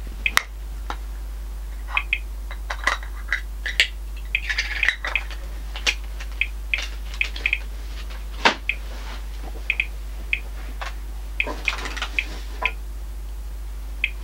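RadEye G-10 gamma survey meter chirping at random intervals, one short high beep per detected count, coming more often as the dose rate rises well above background. There are a couple of short rustles and sharp clicks among the beeps, over a steady low electrical hum.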